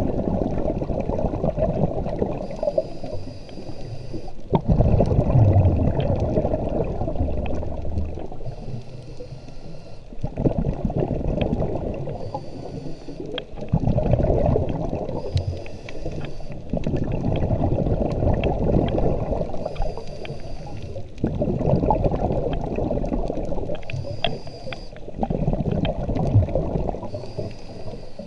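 Scuba diver breathing underwater through a regulator: a short hiss on each inhale, then a longer burst of bubbling as each breath is exhaled. About six breaths, one every four to five seconds.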